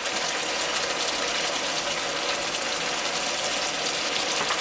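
Onions, peppers and tomatoes sizzling steadily as they fry in oil in a pan.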